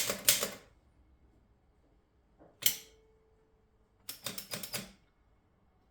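1911 Stoewer Model 5 manual typewriter being typed on, its typebars striking the platen: a quick run of strokes at the start, a single stroke near the middle, and another quick run of about five strokes about four seconds in.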